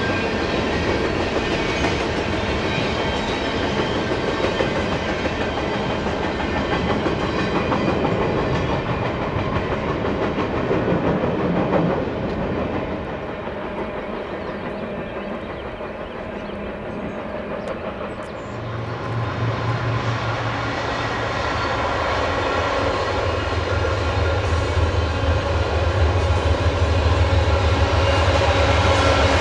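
Train rolling past on the tracks, with wheels clicking over the rail joints. The noise eases about twelve seconds in, then a low steady drone comes in at about eighteen seconds and grows louder to the end.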